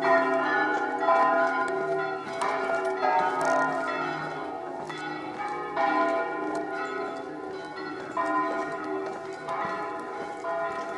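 Swinging bronze church bells of San Rufino Cathedral ringing a full peal, from its electrified ring of six tuned to E-flat and swung by motors. The strikes come irregularly, roughly one a second, and their tones overlap and hum on between strokes.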